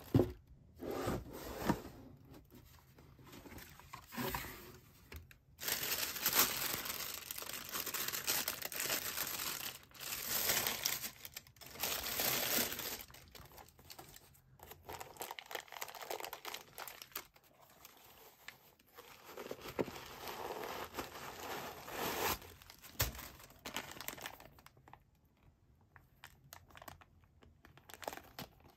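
A sharp knock at the start, then long stretches of crinkling and rustling plastic wrap as a new sneaker is unwrapped from its packing and handled. It is loudest in the first half and sparser and quieter near the end.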